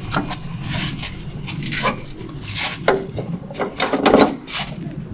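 Irregular light knocks and clatter with some rubbing, louder about four seconds in.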